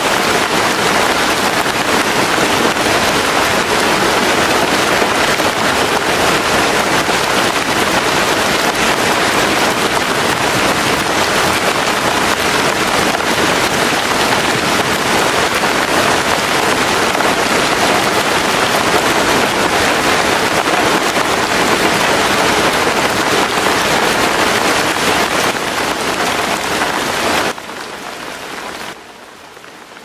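Steady rain falling, an even hiss of many drops that steps down in loudness twice near the end as it fades out.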